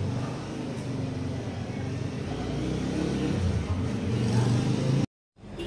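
Low, continuous mechanical rumble with a wavering hum, growing louder near the end and cut off abruptly by an edit.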